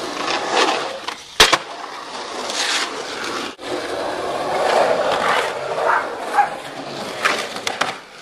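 Skateboard wheels rolling and carving on the bare concrete of an empty swimming pool, with scattered board knocks and one loud sharp clack about a second and a half in.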